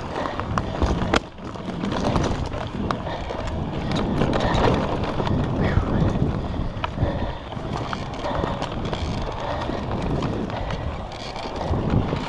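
Electric mountain bike (Trek Roscoe 7 with a Bafang conversion) riding fast down a dirt forest trail: tyres rumbling over the ground and the bike rattling, with many sharp knocks and clicks over roots and bumps, and wind on the microphone.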